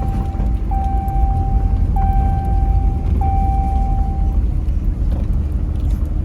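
Low engine and road rumble inside a pickup truck's cab, with a repeated electronic tone, each about a second long with a short gap between, that stops about four seconds in.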